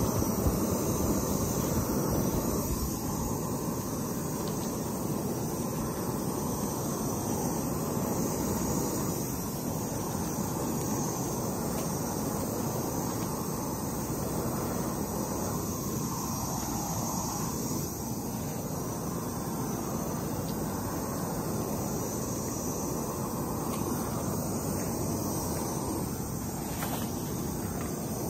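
Propane wand torch burning with a steady rush of flame, directed through a tin can onto weed-barrier fabric to burn planting holes.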